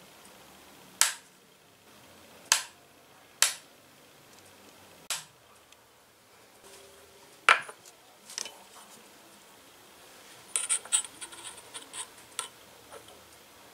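A tiny metal knife strikes a glass cutting board as it chops boiled egg: single sharp clicks a second or two apart. About ten seconds in comes a quick run of small metal-on-glass clinks and scrapes as the chopped egg is gathered up.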